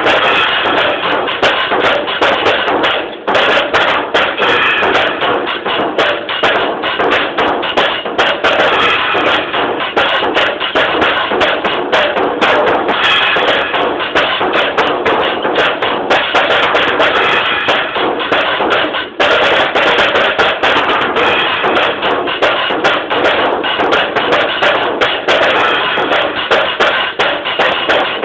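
Drum kit played solo in fast, dense patterns of hits, bass drum included, recorded on a mobile phone so the sound is harsh and lacks low end. There are two brief breaks, about 3 seconds and about 19 seconds in.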